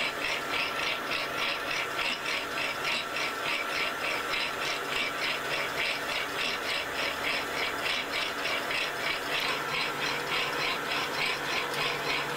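A production machine running with a fast, even, high squeaking or clicking beat, about four strokes a second, over a faint steady hum.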